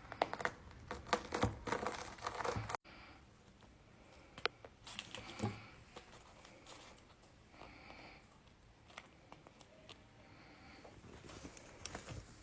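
Crinkling and rustling from handling food packaging, with light clicks and taps, dense for the first three seconds and sparser after. Slow, deep breathing close to the microphone is heard in between.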